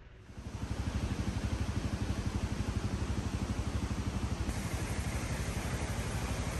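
Motorcycle engine running with an even, fast pulsing beat, coming in sharply about half a second in.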